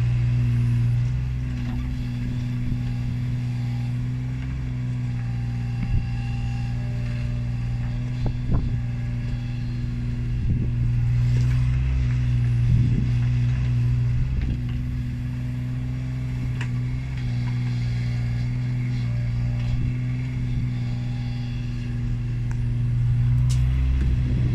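Mini excavator's diesel engine running steadily under working load while it digs and loads soil, with a few sharp knocks along the way.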